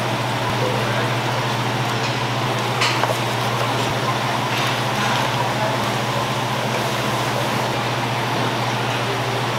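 Steady ventilation hum with an even rushing noise, and a few faint clicks of scallop shells being set down on the wooden board about three and five seconds in.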